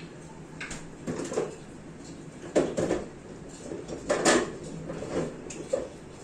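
Rain falling steadily as an even hiss, broken by irregular sharp knocks and clatters, the loudest about two and a half and four seconds in.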